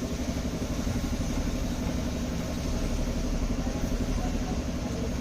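Mitsubishi 4D56 four-cylinder diesel engine idling steadily with an even low pulse.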